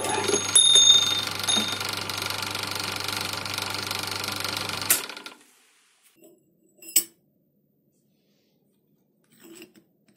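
Small metal lathe running under power while a boring tool cuts the inside of a short piece of pipe: a steady motor-and-gear hum with a few high ringing tones in the first second and a half. It winds down and stops about five seconds in, and a few light clicks follow.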